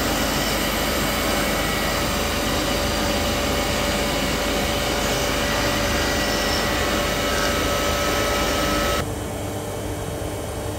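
SANCO SM-FB100NC horizontal boring and milling machine running, milling steel: a steady rushing noise with several held whining tones. About nine seconds in, the rushing high part cuts off suddenly and a lower, quieter running sound remains.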